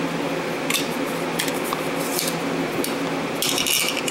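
Pistol magazines and a plastic baseplate being handled: several sharp clicks and a longer scrape near the end as the magazines are brought together. A steady fan hum runs underneath.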